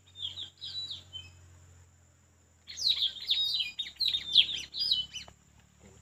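Puling parrots calling: a few short, shrill calls that slide down in pitch in the first second, then after a pause a fast, dense run of the same calls for about three seconds.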